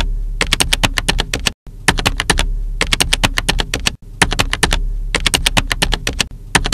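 Typewriter keys striking in quick runs, about six strokes a second, broken by short pauses twice, over a low steady hum.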